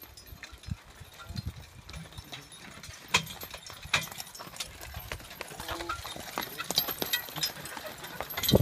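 Draft horses walking, irregular hoof steps with sharp clicks and knocks, busier toward the end.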